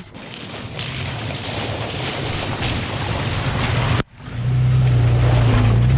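Toyota FJ Cruiser's 4.0-litre V6 running as the truck drives a dirt trail, under a steady rush of tyre and wind noise. About four seconds in the sound cuts off sharply and comes back as a louder, steady engine hum.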